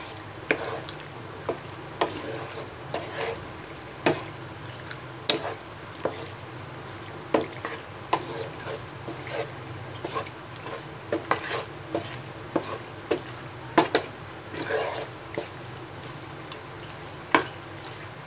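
Spatula stirring penne pasta through a thick sauce in a pan, with irregular clicks and scrapes as it knocks against the pan, over a low steady hum.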